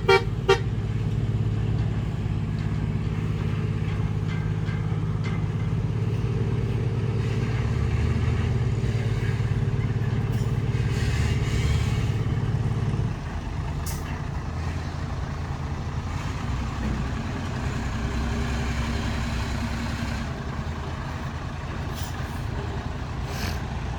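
Heavy dump truck engine running steadily while the truck manoeuvres slowly; about halfway through its note drops to a lower, quieter run. Two short toots sound right at the start.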